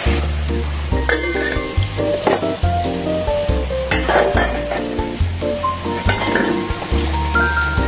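Background music with a steady repeating bass line, over intermittent clatter of pots and utensils being handled.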